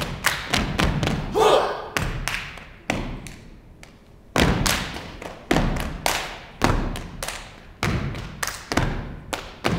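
Step team stomping and clapping in unison on a wooden stage: sharp stomps and claps at about two a second, with a short pause about three seconds in.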